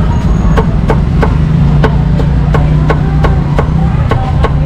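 A cleaver chopping crispy roast pork on a wooden chopping block, sharp even chops about three a second. Under it runs a steady low rumble.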